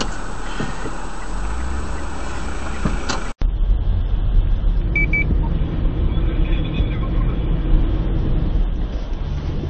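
Steady engine and tyre noise of a car driving on a snowy road, heard from inside the cabin through a dashcam microphone. The sound cuts out sharply about three and a half seconds in and picks up again as a rougher low rumble. Two short high beeps come about five seconds in.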